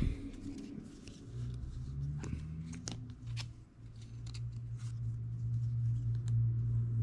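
Light clicks and rustles of trading cards being handled and slipped into plastic card sleeves. A low steady hum comes in about a second and a half in and continues.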